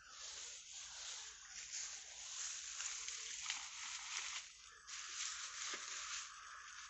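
Water rushing and splashing through a narrow canal channel around a bamboo fish trap, a steady noisy rush with small splashes and gurgles. The flow is strong: the water pressure on the trap is very high. The rush drops briefly about two-thirds of the way in, then comes back.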